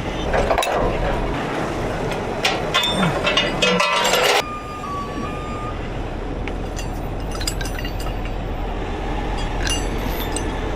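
Metal clinking and rattling for about two seconds, starting about two seconds in, from rigging hardware being handled. A heavy truck engine runs steadily underneath.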